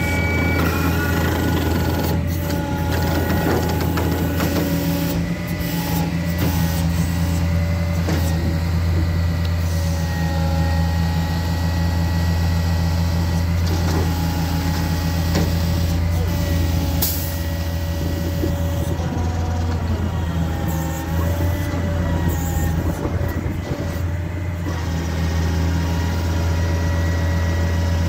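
GMC C8500 truck's diesel engine running steadily under power take-off load, driving the hydraulics of a Terex Commander 4045 digger derrick while the boom is raised and extended. Over the low engine hum sits a hydraulic whine whose tones shift slightly in pitch as the levers are worked.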